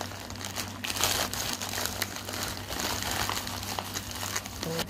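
Parcel packaging being crinkled and torn open by hand, a continuous rustle of many small crackles, with a steady low hum underneath.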